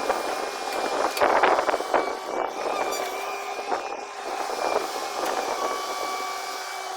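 Long-boom excavator running, its engine a steady drone with a constant whine over it and a few louder irregular surges and knocks in the first two seconds.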